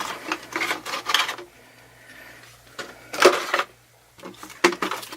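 Phone packaging being handled and opened by hand: rustling of the box and its plastic contents, a louder rustle about three seconds in, and a few sharp clicks near the end.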